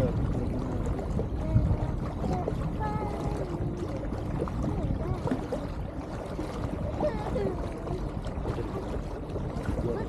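Water rushing and a steady low rumble as a small inflatable boat moves across a lake, with a faint steady hum. Faint voices come through now and then.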